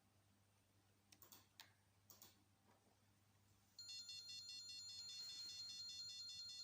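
A few faint clicks, then about halfway through the electronic buzzer of a homemade laser tripwire alarm switches on and sounds a steady high-pitched tone. The alarm is triggered by the laser beam being broken.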